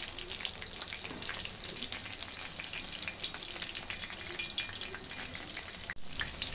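Mirchi bajji, batter-coated green chillies, deep-frying in hot oil in a kadai: a steady sizzle full of rapid small crackling pops. The sound cuts out for an instant about six seconds in.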